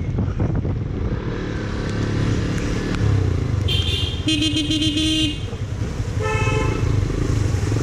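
Yamaha FZ-S motorcycle riding through a flooded street in rain, its engine and the passing air making a steady low rumble. Vehicle horns sound over it: a short honk about three and a half seconds in, a longer wavering honk for about a second right after, and another short honk about six seconds in.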